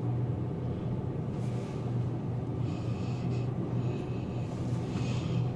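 Steady low mechanical hum with faint hiss, heard inside a moving Ferris wheel gondola.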